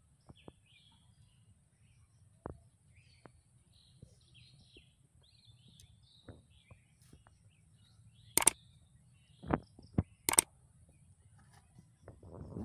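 Small birds chirping faintly, with scattered sharp clicks and taps as a freshly caught fish is handled and unhooked by hand. Three louder knocks come about two thirds of the way through.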